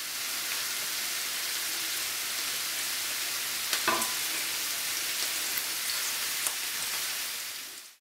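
Carrots, zucchini and broccoli sizzling as they fry in olive oil in a pan, stirred with a wooden spoon, with one brief clack about four seconds in. The sizzle fades out just at the end.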